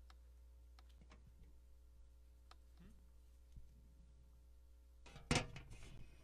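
Steady low electrical hum from an outdoor PA system, with a few faint clicks and one sudden loud knock about five seconds in that quickly dies away.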